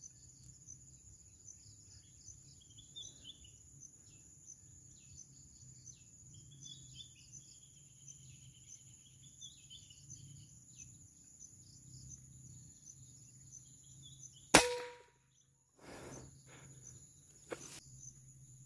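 Steady high-pitched insect chirring and scattered bird calls, broken about two-thirds of the way in by a single loud sharp crack of an air-rifle shot. Two fainter sharp clicks follow near the end.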